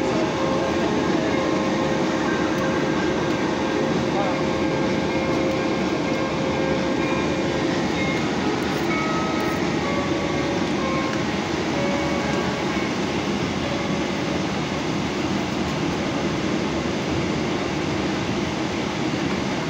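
Steady running rumble heard from inside a moving passenger vehicle, even and unbroken throughout, with a few faint brief tones over it.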